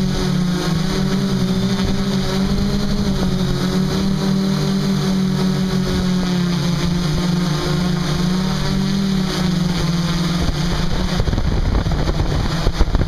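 Electric motors and propellers of a MikroKopter X8 eight-rotor multicopter, heard through its onboard camera. They give a steady pitched hum with a slight wavering in pitch. About ten seconds in, the hum breaks up into rough rushing noise as the craft comes down close to the ground.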